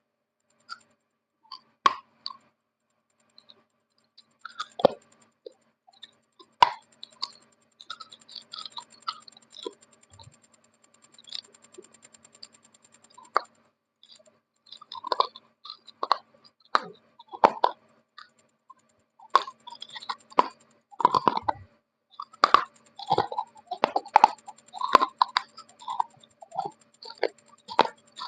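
Close-miked biting and chewing of dry multani mitti (fuller's earth clay): sharp, irregular crunches, sparse at first and coming thick and fast in the second half.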